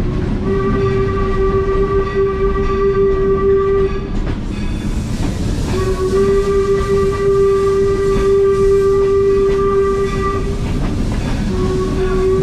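Locomotive whistle of the Northern Central Railway's No. 17 blowing three blasts at one steady pitch, two long and then a shorter one near the end, over the low rumble of the moving train.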